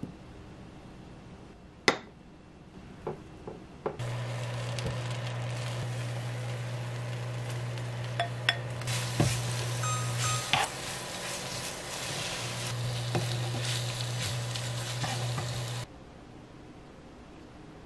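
A few light clicks of a wooden spatula against a plate and pan. Then, from about four seconds in, a steady sizzle of dried squid strips being stirred into chili seasoning in a hot frying pan, with the clicks and scrapes of stirring and a low steady hum underneath, cutting off suddenly about two seconds before the end.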